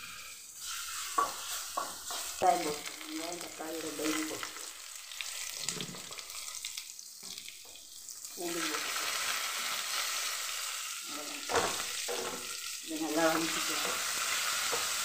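A wooden spatula stirs and scrapes in a kadai of dry-roasting peanuts and dal, with a few sharp knocks against the pan. About eight seconds in, sliced onions and tomatoes go into the hot pan, and a steady frying sizzle starts under the stirring.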